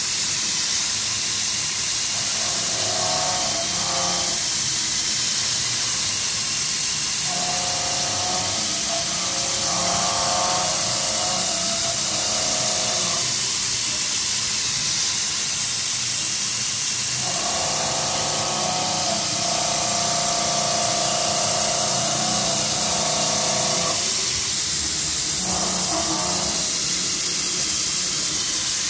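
UDM-2216 three-axis CNC machining center milling a large steel part: a steady hiss, with a pitched whine from the cut that comes and goes in stretches of a few seconds.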